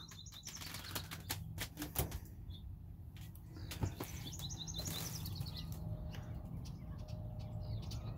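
Small birds outdoors chirping in quick runs of high chirps, with a few sharp clicks and taps in the first couple of seconds and again about four seconds in.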